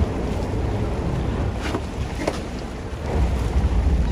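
Wind buffeting the microphone and water washing around a sportfishing boat, over a steady low rumble that gets louder about three seconds in.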